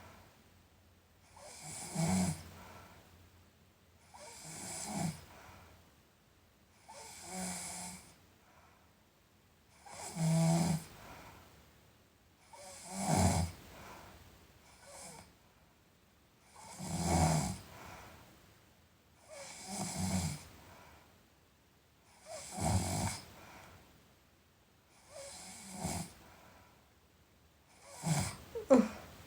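A sleeping person snoring, about ten snores at a steady rhythm of one every three seconds or so.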